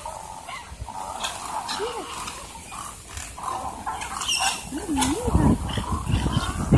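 A flock of egrets calling as they flutter and land all around. The calls are short and scattered, and a low rumble builds near the end.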